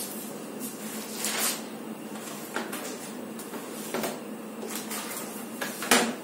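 Scattered light knocks and clicks with a short rustle about a second in and the loudest knock near the end: handling noises of someone moving about and picking things up in a small room.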